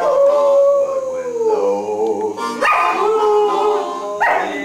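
Border collie howling: long drawn-out howls that slide slowly down in pitch, with a fresh howl starting about two and a half seconds in and another near the end.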